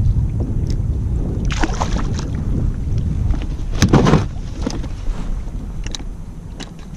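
Wind rumbling on the microphone aboard a kayak, with a few short splashy noises on the water, the loudest about four seconds in. The rumble eases off toward the end.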